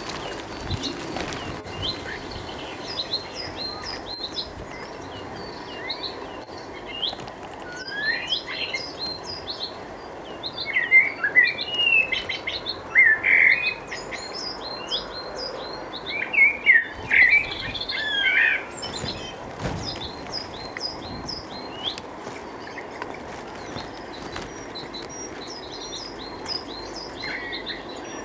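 Several wild birds chirping and singing: a continual scatter of short high chirps, with louder, lower warbling phrases coming in a few times in the middle.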